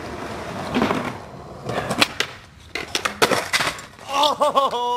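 Skateboard wheels rolling on concrete, then several sharp clacks and smacks of the board against the ground and obstacle. Near the end a person lets out a long drawn-out shout.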